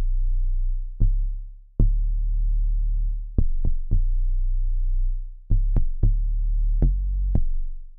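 A solo deep synth bass line played back from a sequencer: about ten low notes in an uneven, syncopated pattern, each starting with a sharp click. Some notes are held and some are short, and a few follow in quick succession near the middle.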